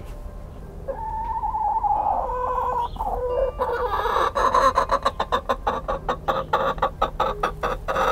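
Easter Egger hen calling: a drawn-out call starting about a second in, then a fast, loud run of clucks at about five a second.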